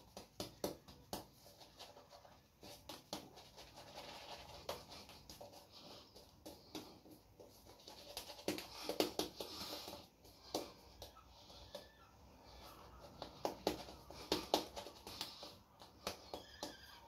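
Shaving brush working G.F. Trumper Limes lather over the face and neck: wet, crackly squishing in quick, irregular strokes, busiest about halfway through and again near the end.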